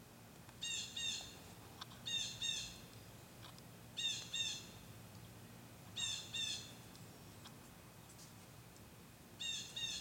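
Blue jay calling: five pairs of quick two-note calls, one pair about every two seconds.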